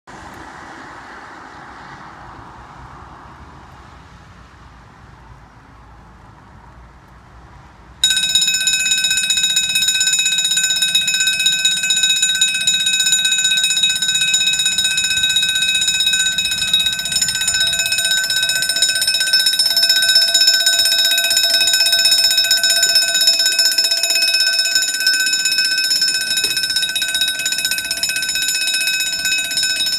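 Level crossing warning bell starts ringing suddenly about eight seconds in and then rings on continuously, loud and steady, warning that a train is coming and the barriers are about to lower.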